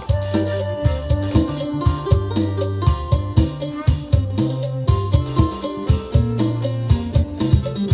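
Yamaha PSR-S-series arranger keyboard playing a sound-pack style: a steady drum beat with a pulsing bass line under an electric piano and organ-like melody.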